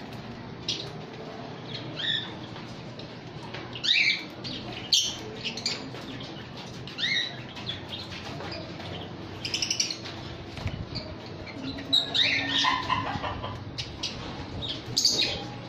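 Budgerigars and ringneck parakeets chirping and calling at their feeders: short, sharp chirps, some sliding in pitch, scattered throughout and busiest about four seconds in and from about twelve seconds on.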